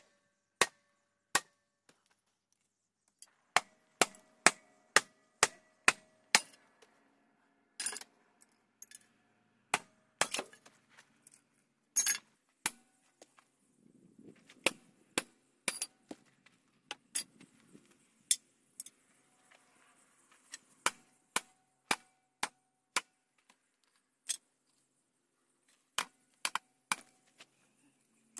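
Hard knocks on metal, like hammer blows, in runs of about two a second with pauses between the runs; some strikes leave a faint ring.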